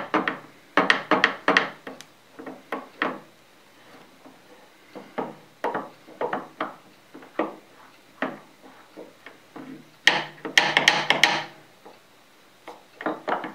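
The steel shaft and its bushing on a Bridgeport rotary table's housing being worked by hand to free it during disassembly: irregular metal clicks and knocks, thickest in the first two seconds and again in a dense flurry about ten seconds in.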